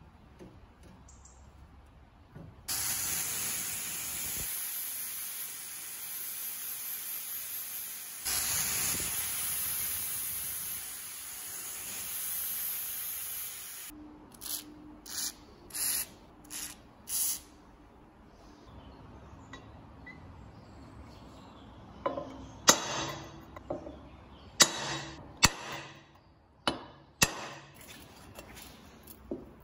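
WD-40 aerosol can spraying through its straw onto rusted bolts of a cast-iron stove grate: a long continuous hiss of about eleven seconds, then several short spurts. Near the end come a few sharp metallic snaps and clinks as end-cutting pincers bite at a rusted bolt head.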